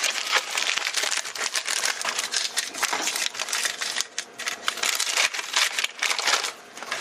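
Rustling and crinkling of a paper packet of dried eucalyptus leaves while a heaped spoonful is scooped out, a dense run of fine crackles that eases off briefly twice.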